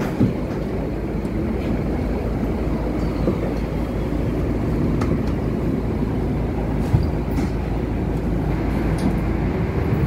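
Steady low rumble and hum of a city bus heard from inside its passenger cabin, with a few sharp knocks and rattles, the loudest near the start and about seven seconds in.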